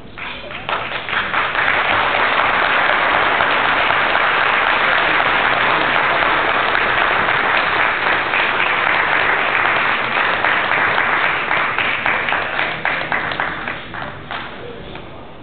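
Audience applauding: the clapping swells over the first couple of seconds, holds steady, then thins to scattered claps and dies away near the end.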